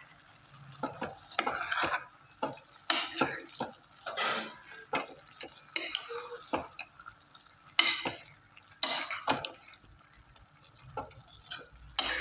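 A spoon stirring and scraping in a cooking pot, with irregular clinks and scrapes against its sides and bottom.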